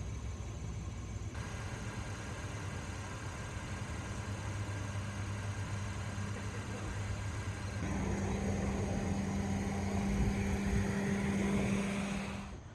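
Vehicle engine running steadily with a low hum and road or street noise, changing abruptly twice and rising in pitch near the end.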